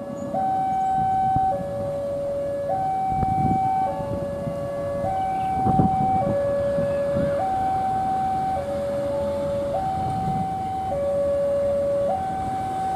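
Electronic two-tone warning alarm of a railway level crossing, alternating steadily between a higher and a lower tone about every second and a quarter, warning of an approaching train. A low rumble runs underneath.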